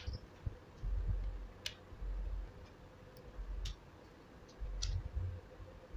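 Several light, separate clicks and taps as the laptop's battery cable connector is pushed back into its motherboard socket with a small screwdriver, with low handling bumps in between.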